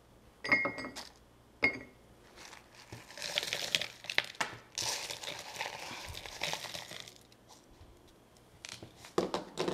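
Crushed ice sliding and crackling out of a bowl into a blender jar, in two long pours from about three to seven seconds in. Two short ringing clinks come first, within the first two seconds.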